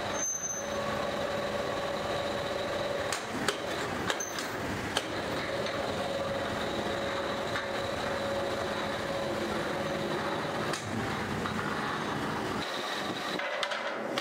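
Rotational moulding machinery for plastic water tanks running: a steady mechanical rumble with a steady hum through it, and a few sharp metallic clicks about three to five seconds in.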